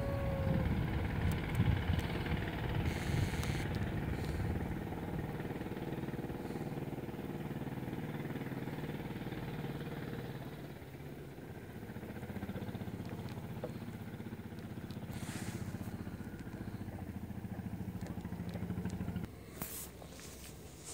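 A motor vehicle's engine running, louder in the first half, then a steadier hum that cuts off suddenly near the end.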